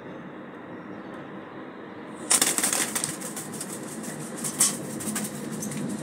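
Hooded crow flapping its wings as it takes off from a windowsill: a sudden loud burst of wing beats a little over two seconds in, followed by a run of quicker flutters and rustling.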